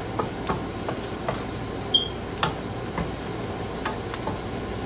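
Wooden spatula stirring beef strips in a stainless steel skillet, with irregular light knocks and scrapes of wood against the metal pan, over a steady low hiss.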